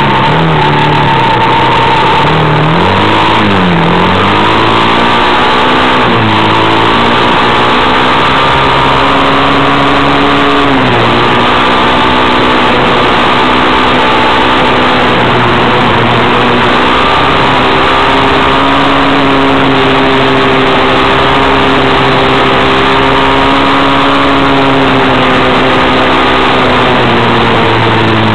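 Vehicle engine running while driving on a gravel road, over a loud steady rush of tyre and wind noise. The engine pitch falls and rises a few seconds in, drops again about eleven seconds in, then holds steady.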